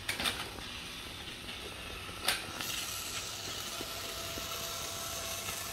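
Small motor of a Magformers toy airplane running as it rolls along a magnetic-tile track, with a sharp click about two seconds in and a faint steady whine from about four seconds in.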